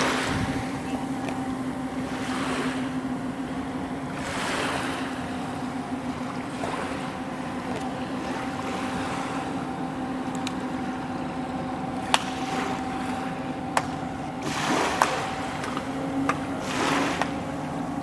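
Steady low drone of the departing ferry MV Salish Orca's propulsion carrying over the water, with small waves washing onto the beach every couple of seconds. A few sharp clicks come in the second half.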